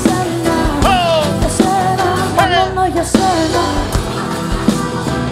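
Live pop band with drums, bass and keyboards playing, with singing that swoops up and falls away in pitch several times over the beat.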